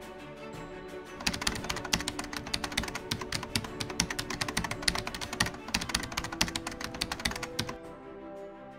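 Rapid keyboard typing sound effect, a dense run of clicks that starts about a second in and stops near the end, over background music with sustained tones.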